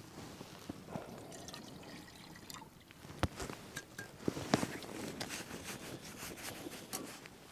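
Vacuum flask and cup being handled: a little dripping liquid among sharp clicks and knocks of the lid and cup, the loudest about three and four and a half seconds in, as the flask's cap is screwed back on.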